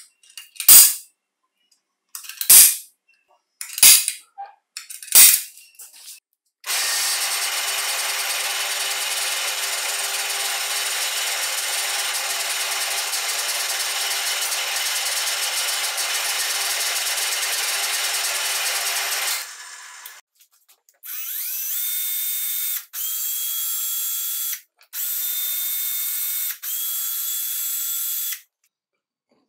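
Four sharp snaps of a spring-loaded automatic center punch marking an aluminium drill housing, then a drill press running steadily for about 13 seconds as it drills into the housing. Near the end, a cordless drill runs in four short bursts, each one whining up in pitch as the motor spins up.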